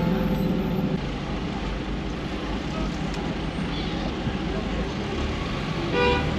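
Steady road and traffic noise from a car driving through city streets, with a low rumble. A short pitched sound cuts through just before the end.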